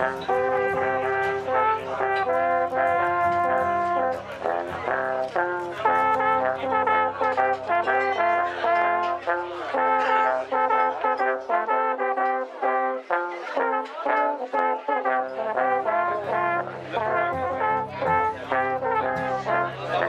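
Three alphorns playing a slow tune together, long held notes at several pitches sounding at once. The deepest notes fall silent for a few seconds about midway, then return.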